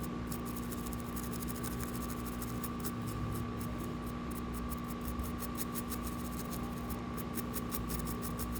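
A steady electrical hum with two held tones over a hiss, with many faint rapid ticks and scratches on top.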